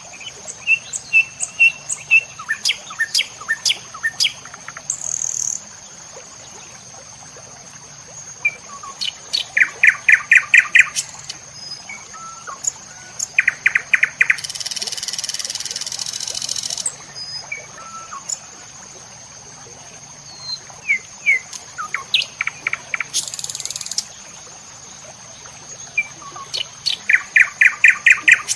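Birds chirping: repeated sharp calls and fast trills in several bursts, over a steady high-pitched whine. A brief hiss lasts about two seconds around the middle.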